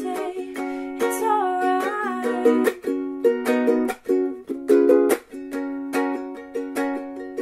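Background music: a light tune of plucked strings at a steady pace.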